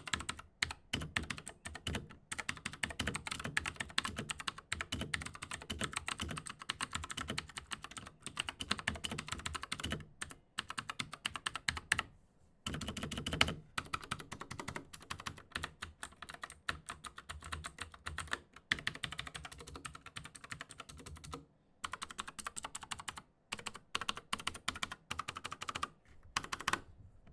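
Redragon Vara K551 mechanical keyboard being typed on fast and steadily, its custom Redragon clicky switches (close to Cherry MX Blues) giving a fairly loud click on every keystroke. The typing stops briefly a few times.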